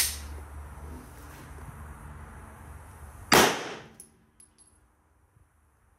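Beretta 92 9mm pistol firing subsonic 147-grain Winchester Super X full-metal-jacket rounds: the tail of one shot at the very start, then a second, louder shot about three and a half seconds in that rings out briefly. A few faint high ticks follow it.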